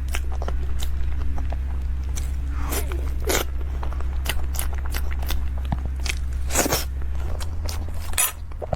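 Close-miked chewing of crispy food: a quick, irregular run of sharp crunches and crackles, over a steady low hum.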